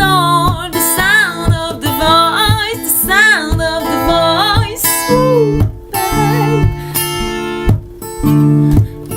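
Music: a voice singing with a wavering pitch over a strummed acoustic guitar. After about five seconds the guitar strumming comes to the fore.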